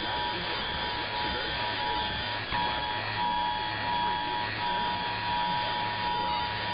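Emergency Alert System two-tone attention signal (853 and 960 Hz together), held steady as received over a noisy radio broadcast with hiss underneath. The tone briefly breaks up twice.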